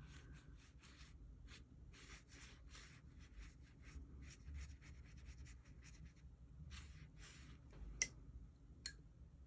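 Faint repeated strokes of a wet paintbrush on watercolour paper, with one sharper click about eight seconds in.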